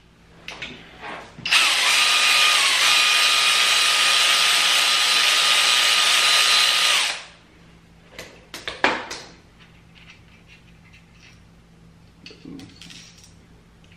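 Kobalt cordless electric ratchet running steadily for about five seconds with a whir, spinning a bolt out of the engine block. A few clicks and metal clinks follow a second or two after it stops.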